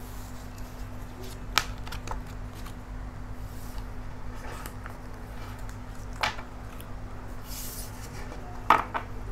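Tarot cards being handled: a few light taps and clicks, spread out over several seconds, over a steady low hum.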